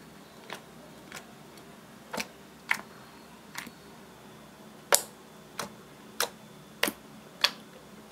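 Clear slime, mixed with pink eyeshadow, making sharp clicking pops as fingers poke and press into it and release trapped air. About ten separate clicks come at uneven intervals of roughly half a second to a second.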